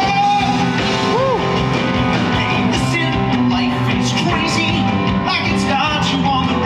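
Live concert music: a singer with an amplified backing band performing Broadway show music.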